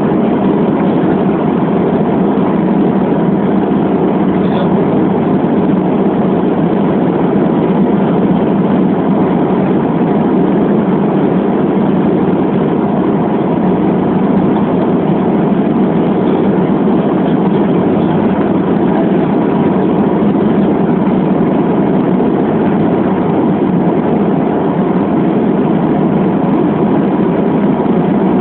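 Steady drone of a Bombardier Dash-8 Q400's twin Pratt & Whitney PW150A turboprops and six-blade propellers, heard inside the cabin: an even roar with several steady humming tones, unchanging throughout.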